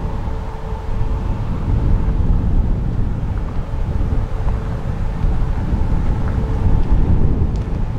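Wind buffeting the microphone: a heavy, gusting low rumble that swells and eases over a few seconds.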